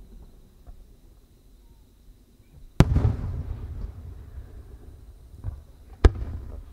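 Aerial firework shells bursting: two sharp bangs about three seconds apart, each followed by a rumbling echo.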